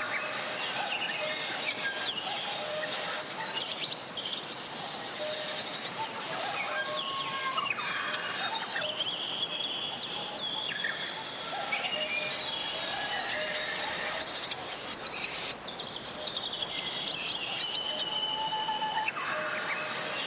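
Mountain valley stream flowing steadily, with birds chirping and singing over it throughout.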